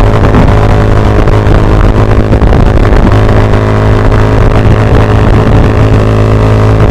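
Honda Grom's 125 cc single-cylinder four-stroke engine running loud and steady while the bike is ridden, holding an even engine speed.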